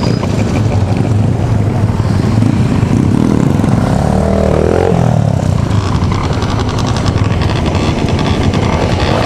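Two-stroke Honda Dio scooter engine running under way, with other scooters and motorcycles of the group close by. An engine revs up and back down about four seconds in.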